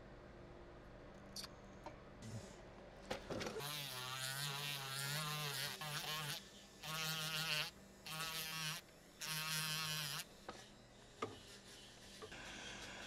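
Flex-shaft rotary tool grinding on a ring in four bursts of a few seconds each, starting about a third of the way in: a steady motor buzz with a hiss as the bit cuts the metal. A few light clicks of the handpiece being handled come before and after.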